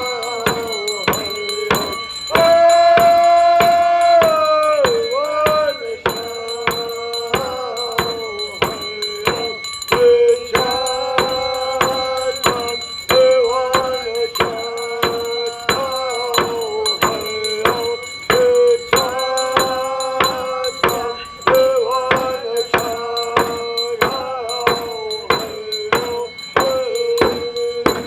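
Song with a sustained voice line and a steady, evenly struck percussion beat, about two to three strikes a second.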